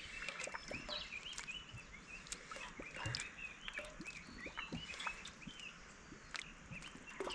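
Faint, repeated short chirping calls of small wild animals, with scattered light clicks between them.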